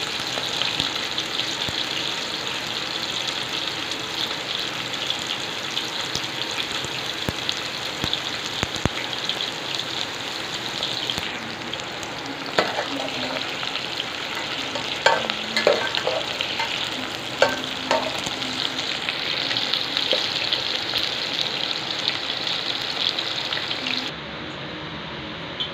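Cut okra sizzling steadily as it fries in oil in an aluminium pot, stirred with a metal skimmer that knocks against the pot a few times about halfway through.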